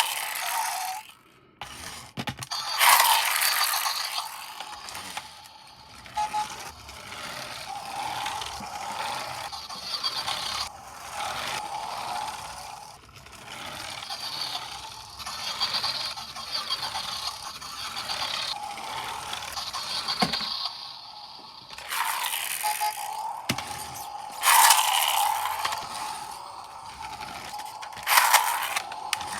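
Small electric motor and plastic gears of a motorised toy running with a steady whine, broken by several louder bursts of plastic scraping and rattling.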